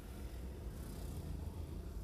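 Steady low rumble of a vehicle on the move, with faint hiss above it.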